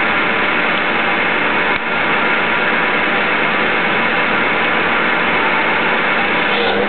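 CNC-converted Myford Super 7 lathe running with its carbide insert tool turning a steel-coloured spindle nose blank: a steady mechanical running noise, with a brief dip about two seconds in.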